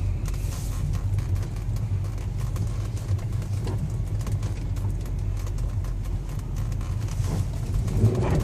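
Mitsubishi Outlander III driving slowly under throttle on a slippery road, heard from inside the cabin as a steady low drone. The driver takes the hum under wheel slip for the all-wheel-drive coupling, since stability control is switched off and cannot be braking the wheels.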